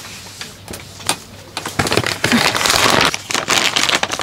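Meal-kit bag crinkling and rustling as it is handled and opened, loud from about two seconds in, after a few soft clicks.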